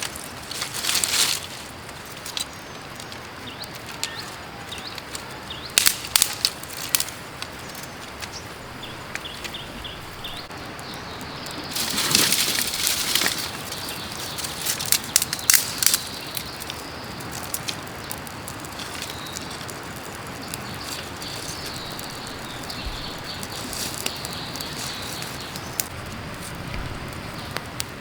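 Steady rush of a running creek, with several short spells of rustling and sharp clicking from close handling of things.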